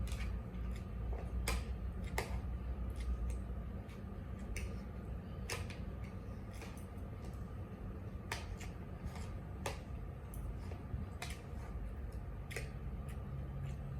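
Eating sounds during a mukbang meal: irregular sharp clicks and taps, about one or two a second, over a steady low hum.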